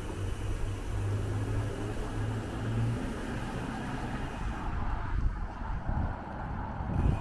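Road traffic: a motor vehicle running close by, with a steady low hum that fades out about three seconds in, over general street noise.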